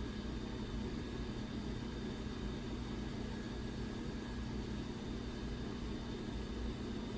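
Steady mechanical hum of a shop milling machine running, with a few fixed tones over a low rumble.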